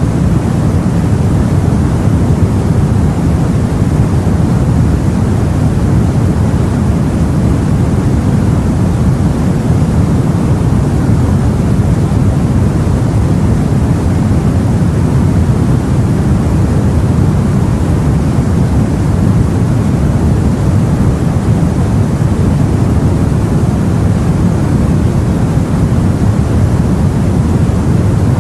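Steady, low-pitched rushing noise of sea and wind as heard aboard a boat, unbroken and without distinct waves or splashes.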